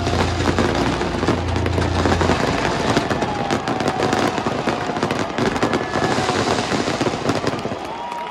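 Stadium fireworks display: many rapid, overlapping bangs and crackles, thinning a little toward the end.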